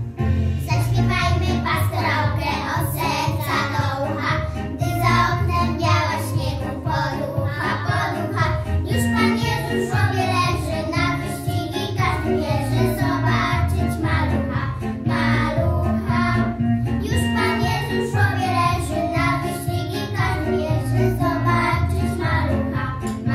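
Four young girls singing a Polish Christmas pastorale together over an instrumental accompaniment with a steady low bass line.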